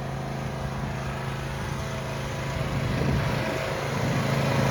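Riding lawn mower's small engine running steadily under throttle, growing louder over the last second or two as the mower comes closer.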